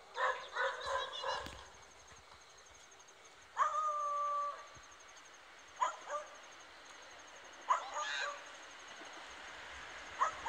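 A dog barking in short clusters of sharp barks. About three and a half seconds in comes a single steady held note lasting about a second.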